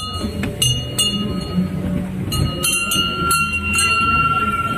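Bells ringing: a run of sharp metallic strikes at uneven intervals, each leaving a ringing tone that holds longest in the second half, over a steady low din from the crowd.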